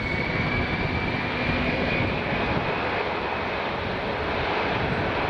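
Boeing C-17 Globemaster III's four Pratt & Whitney F117 turbofans at takeoff power on the takeoff roll: a loud, steady jet noise with a high whine that rises slightly.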